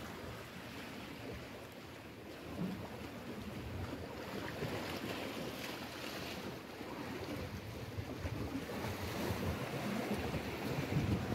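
Sea waves washing against a rocky shoreline, with wind buffeting the microphone.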